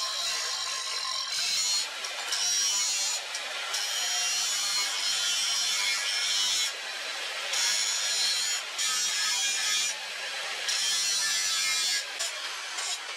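Angle grinder with an abrasive cut-off disc cutting into leaf-spring steel. It gives a steady grinding hiss that breaks off briefly and resumes several times as the disc is eased out of and back into the cut.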